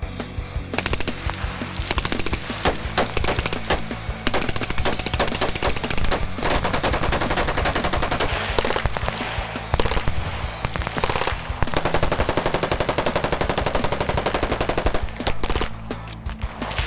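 Automatic gunfire in long rapid bursts, shots following one another in quick succession with a few brief pauses.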